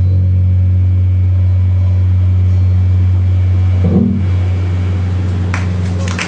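A loud, steady low drone from the band's amplified rig, a held bass note ringing out at the close of a live rock song. It cuts off just before the end.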